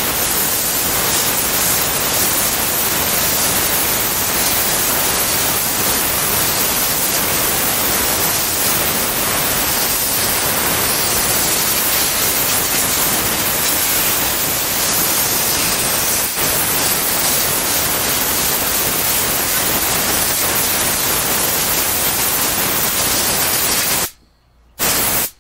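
Compressed-air blow nozzle blasting sanding dust off a carved wooden sign: a loud, steady hiss that stops a second or so before the end, followed by one short burst.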